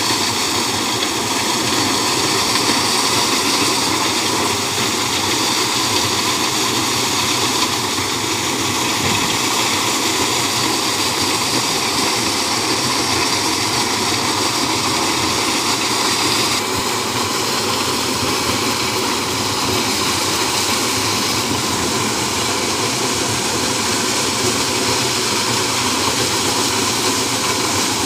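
Tractor-driven maize sheller running steadily while cobs are fed in. The machine and the tractor engine driving it make one loud, even rushing noise, with husk and dust blowing out of the sheller.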